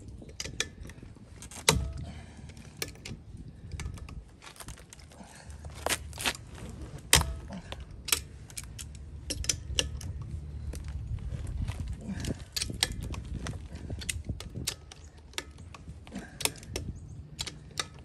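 A socket wrench with an extension loosening the lug nuts on a steel trailer wheel: irregular sharp metal clicks and clinks of the ratchet and the socket on the nuts.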